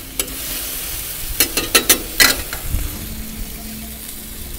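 Cherry tomatoes, shallots and chili sizzling on a hot stainless-steel teppanyaki plate, with a metal spatula scraping and clacking on the plate as the mix is stirred. The clacks come in a quick cluster about one and a half to two and a half seconds in.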